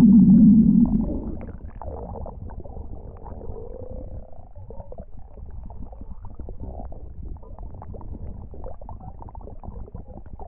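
A low rumbling sound, loud for about the first second, then dropping to a quieter, crackly, gurgling rumble that goes on, with a short rising tone about four seconds in.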